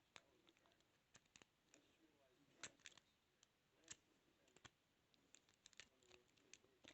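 Lock pick and tension tool working inside a padlock: faint, irregular small metallic clicks and scrapes, with a couple of sharper ticks near the middle.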